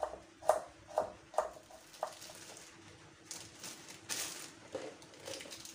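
Kitchen knife chopping seasonings on a wooden cutting board, four sharp knocks in the first two seconds, followed by a plastic bag rustling.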